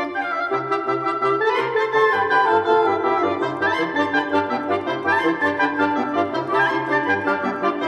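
Background music: a melody with quick rising runs over a repeating bass line.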